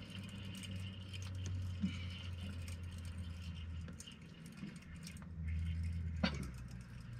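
Fishing reel being wound in against a fish on the line, with light ticking from the reel and a low hum that comes and goes; a sharp click about six seconds in.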